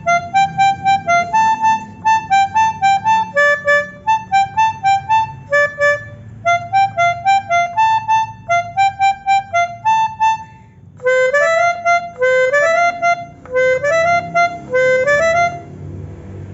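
Pianika (melodica) playing a Basuri telolet bus-horn melody in short detached notes, about four a second. After a brief pause about eleven seconds in, each note slides up in pitch, like a bus horn's rising toot, and the playing stops shortly before the end.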